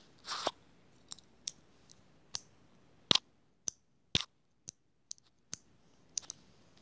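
About ten sharp clicks and taps at irregular intervals, from small things being handled, the loudest about three seconds in, after a brief rustle near the start.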